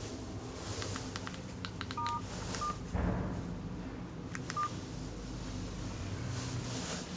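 A few short electronic keypad beeps: a two-tone beep about two seconds in, then two single beeps, each with a light button click, over a steady low hum.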